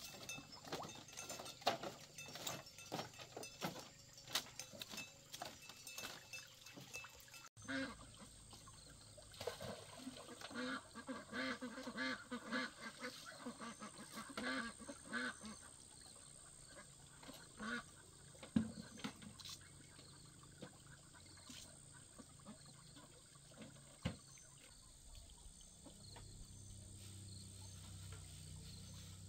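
Light footsteps and knocks on a bamboo walkway. Then ducks quacking in a run of short calls, sparser later, with a faint low hum coming up near the end.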